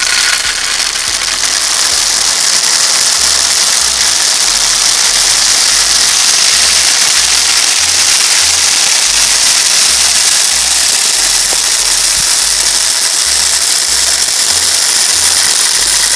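Dry deer feed pouring into a PVC-pipe deer feeder: a loud, steady rattling hiss of grains running down the pipe.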